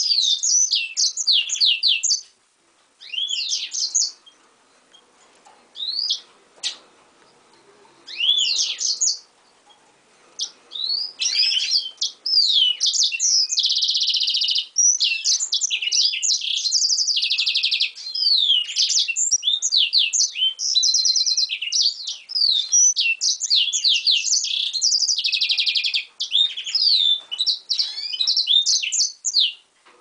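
Caged pintagol, a yellow-rump x canary hybrid finch (mule), singing in rapid high sweeping notes. In the first ten seconds the song comes in short phrases with pauses between them. From about eleven seconds on it runs almost without a break, with several buzzy trills.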